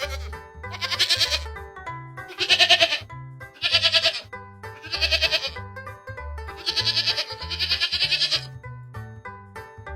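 Background music with a steady bass line and a bleat-like, fluttering sound that repeats about every second or so in time with the beat.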